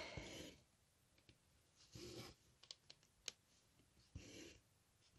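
Near silence with faint, soft swishes about every two seconds and a few tiny clicks: thread drawn through cross-stitch fabric by hand, the needle ticking against the cloth.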